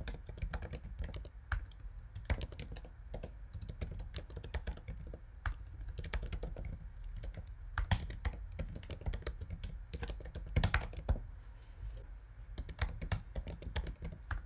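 Typing on a computer keyboard: a quick, irregular run of key clicks, with a few louder strokes, over a steady low hum.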